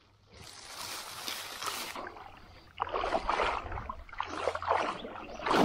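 Someone wading through shallow water, splashing and sloshing in two uneven spells of a couple of seconds each.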